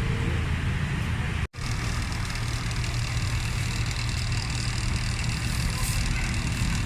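Steady low mechanical hum with a haze of background noise, like an engine running, cut off for an instant about a second and a half in.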